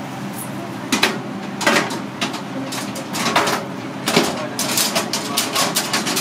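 Long-handled cast-iron taiyaki molds clanking and knocking against one another and the grill rack as they are turned over, a few separate knocks at first, then a quick run of clatter in the second half.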